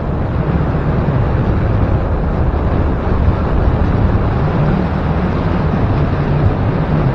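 Steady wind rush on the microphone of a moving motorcycle, with the engine running underneath.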